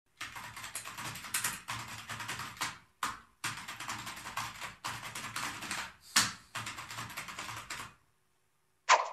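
Fast typing on a laptop keyboard: quick runs of key clicks broken by two short pauses, then one sharper, louder knock near the end.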